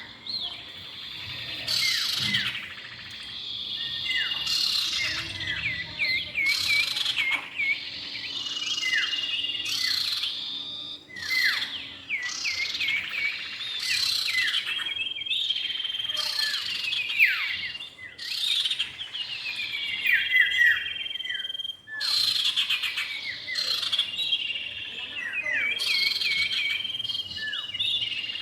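Common iora (cipow) male and female calling: a busy run of short whistles that drop in pitch, mixed with longer held whistled notes.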